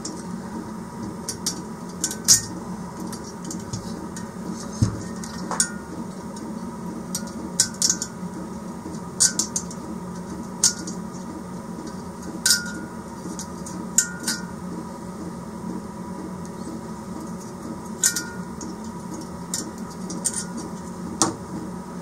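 Small metal pick clicking and scraping against a Chinese diesel heater's aluminium burner housing while the burner screen is prised out of the glow-plug hole: irregular sharp clicks and clinks over a steady low hum.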